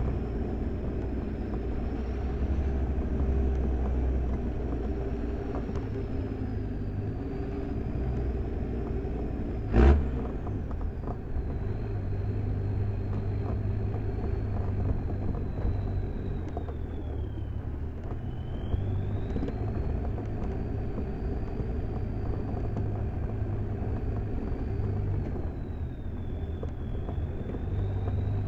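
Land Rover Defender Td5's five-cylinder turbodiesel engine running as the truck drives along a dirt track, a steady low rumble with a thin whine that rises and falls. A single sharp knock about ten seconds in, after which the whine falls away and then climbs again.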